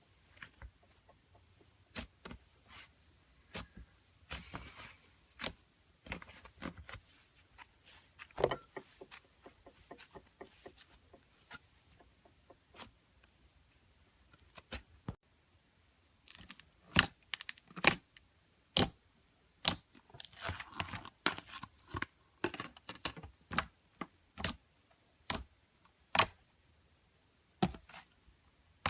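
Slime being squeezed and poked by hand, making irregular sharp clicks and pops. They are sparse and light at first and come thicker and louder from about halfway through.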